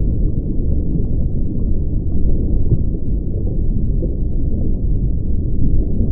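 Steady low rumble of water heard underwater, with no dolphin whistles or clicks standing out.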